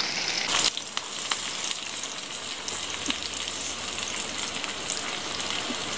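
Chopped onions sizzling in hot oil in a frying pan as they are tipped in. The sizzle is loud at first, drops suddenly under a second in, then goes on as a steady hiss with scattered small pops.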